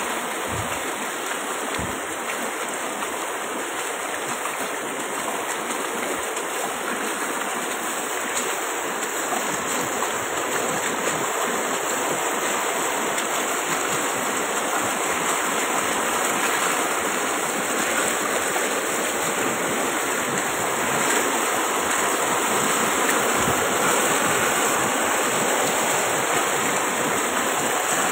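Fast-flowing muddy floodwater pouring across a road: a steady rushing noise that grows gradually a little louder.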